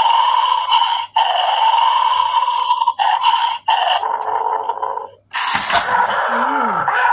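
Battery-powered toy bulldog's small speaker playing its electronic dog sound effect, broken by a few short pauses. About five seconds in, the toy springs forward to guard its food bowl with a louder, rougher burst of sound, its lunge mechanism triggered.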